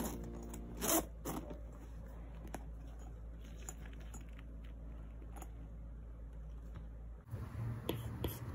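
Zipper of a padded laptop sleeve being pulled, strongest about a second in, followed by soft rustling and handling clicks. Near the end, small taps of a stylus tip on a tablet screen.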